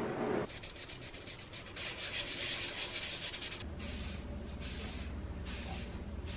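A scratchy rubbing noise, then, about two-thirds of the way in, an aerosol can of silver spray paint hissing in short spurts of about half a second each, four of them.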